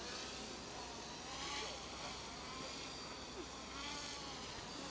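MJX Bugs 2W quadcopter's brushless motors and propellers buzzing faintly as it flies, the whine's pitch sliding up and down several times as it turns and is steered.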